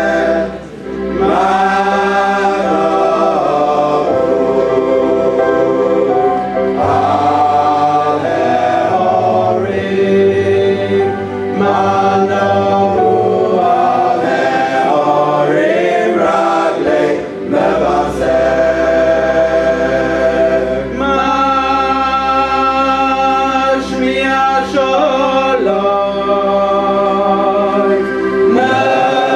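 A choir sings a Jewish song in parts over a sustained low bass accompaniment. The bass note shifts about seven seconds in and again near eighteen seconds.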